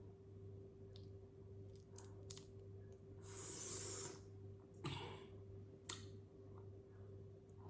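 Quiet mouth and hand noises of someone eating prawns: scattered small clicks and a short hiss a little over three seconds in, over a steady low electrical hum.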